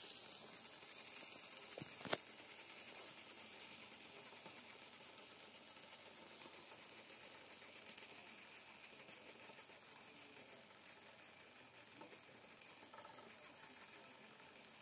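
Modified MG996R continuous-rotation servo's motor and metal gear train running: a high whine with fast fine ticking from the gears. A sharp click about two seconds in, after which it runs quieter and gradually fades. The servo turns on its own when a finger touches the capacitor on its control board, which the owner suspects shifts its reference voltage.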